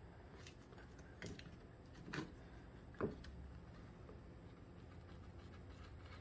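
A hand carving tool cutting into eucalyptus bark: four short, sharp cuts, the loudest two to three seconds in.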